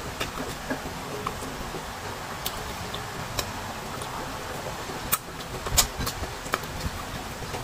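Crisp bites and chewing of unripe mango slices: irregular sharp crunches and mouth clicks over a steady hiss, the loudest about five to six seconds in.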